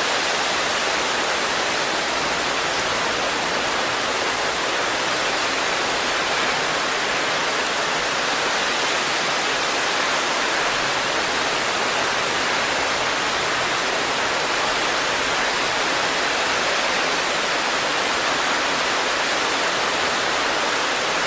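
Steady heavy rain: a dense, even hiss with no separate drops standing out.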